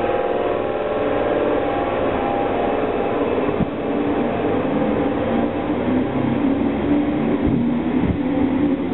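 ScotRail electric multiple unit running along the platform, its traction motors whining in several tones that slowly fall in pitch as it slows. A few sharp knocks from the wheels come near the middle and the end.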